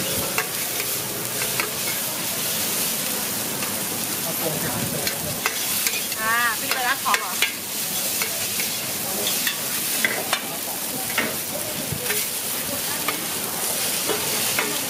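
Pad thai noodles and bean sprouts sizzling on a large flat griddle pan while a metal ladle and spatula stir and toss them, clacking and scraping against the pan. A brief wavering squeal comes about six seconds in.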